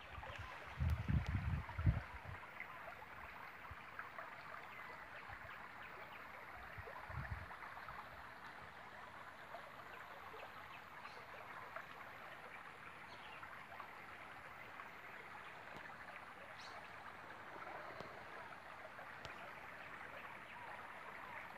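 Steady rush of water, with a few loud low thumps about one to two seconds in and another near seven seconds.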